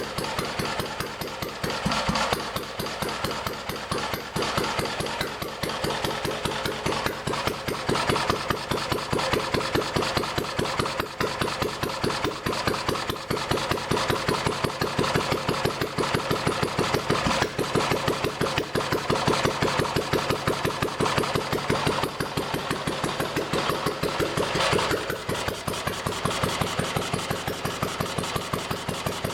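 UZMD L3/2 stationary engine running with an even firing beat, its speed shifting slightly a few times. The engine is running again after an overhaul.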